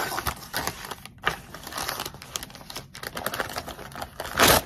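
Brown kraft-paper padded mailer crinkling and crackling as it is torn open and handled by hand, with a brief, louder rustle near the end.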